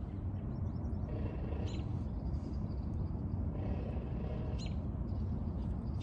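Steady low outdoor rumble, like wind on the microphone, with a bird giving a short high call twice, a little under two seconds in and again near five seconds.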